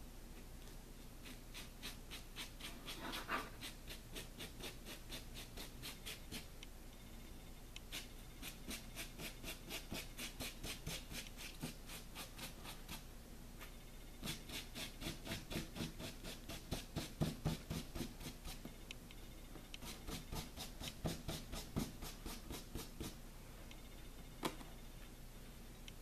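A crumpled wad of plastic wrap dabbed rapidly against paper to stipple on paint, at about four or five dabs a second in several runs of a few seconds each. A single sharper knock comes near the end.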